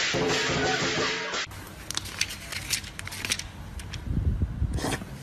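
Background music with light percussion, cut off abruptly about a second and a half in, followed by a quiet room with scattered small clicks and taps.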